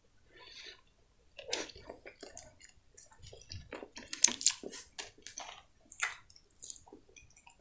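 A person chewing a soft cupcake topped with whipped cream: irregular wet smacks and clicks of the mouth, thickest around the middle.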